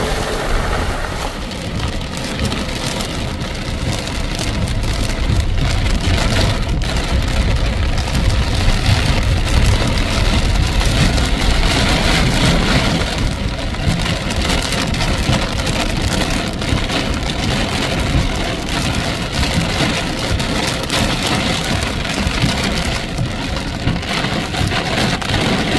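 Steady noise of a heavy rainstorm, with a deep rumble underneath.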